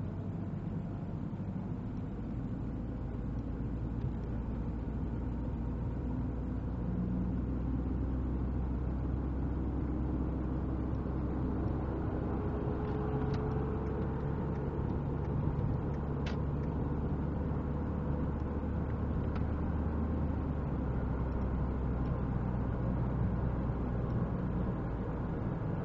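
A car engine running steadily with a low rumble, with a few faint clicks around the middle.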